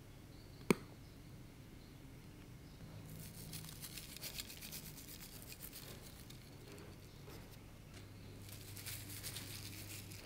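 A single sharp click about a second in. Then comes a fine crackling patter as dried green seaweed (aonori) is sprinkled over takoyaki, and near the end a crisp rustle of dried bonito flakes being dropped on.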